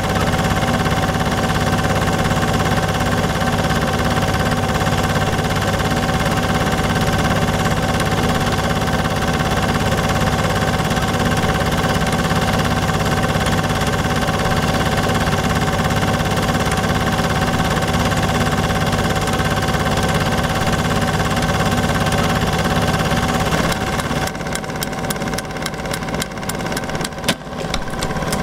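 A Super 8 film projector running, a steady mechanical whir with a fine rapid clatter. Near the end it turns uneven and breaks into fast clicking.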